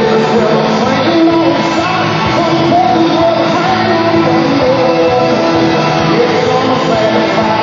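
Loud band music with a singing voice.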